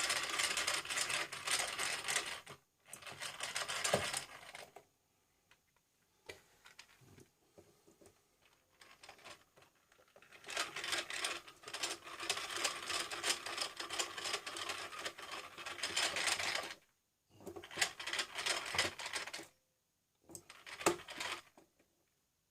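Screwdriver turning screws out of a PC case: several bursts of rapid clicking and scraping, separated by short pauses.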